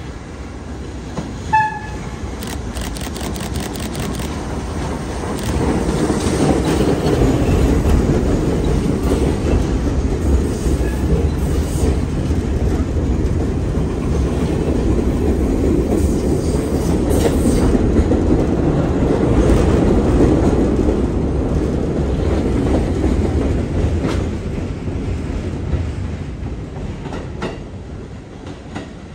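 R32 subway train approaching and running in along the platform: a brief horn toot about a second and a half in, then the rumble and clickety-clack of its wheels on the rails. The sound swells as the stainless-steel cars pass close and eases off near the end.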